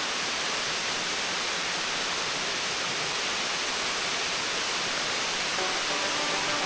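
Creek water running, a steady even rush of noise.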